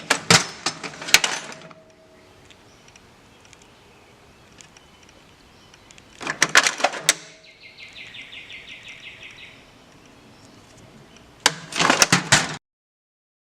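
Tools and metal parts being picked up and set down: three bouts of hard clattering, with a quick even run of light clicks in between. The sound cuts off abruptly near the end.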